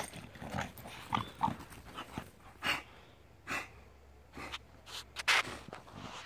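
English bulldog snorting and sniffing in a string of short, irregular puffs, the loudest about five seconds in.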